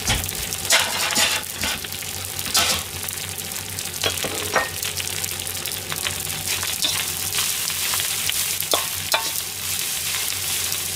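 Lettuce fried rice sizzling steadily in a wok. A metal ladle scrapes and clanks against the pan at intervals as the rice is stirred.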